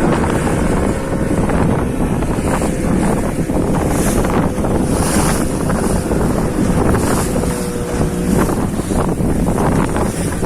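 Fishing boat's engine running steadily, with wind buffeting the microphone and the sea washing against the hull.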